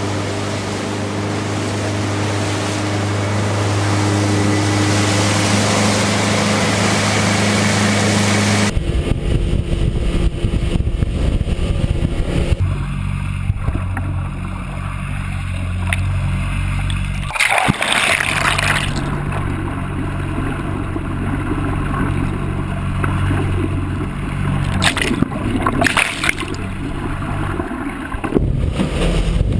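Motorboat running under way: a steady engine hum with water rushing along the hull. About nine seconds in, the sound switches to the underwater side, where the engine and propeller become a muffled low rumble with bubbling water and a few brief splashes.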